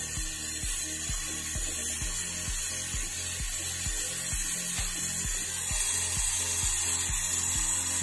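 Background music with a steady bass beat, over a steady high hiss from a gas brazing torch's flame.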